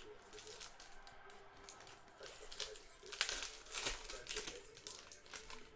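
Foil wrappers of trading-card packs crinkling as they are torn open by hand, with the loudest crackling about three to four seconds in.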